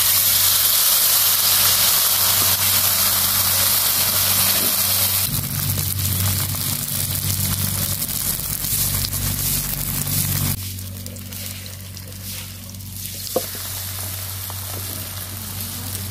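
Shrimp batter sizzling in hot oil in a frying pan, loud as it is ladled in and settling into a quieter frying sizzle about ten seconds in. A low steady hum sits underneath, and there is a single sharp click near the end.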